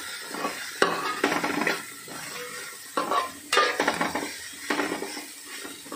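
A metal spatula stirs and scrapes sliced onions and shallots around a large aluminium pot, making repeated rasping strokes about one or two a second against the metal. Under the strokes is the light sizzle of the onions frying in coconut oil.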